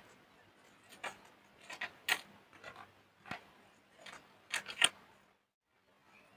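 Soap being crushed by hand: a string of irregular crisp crunches and crackles that stops about five seconds in.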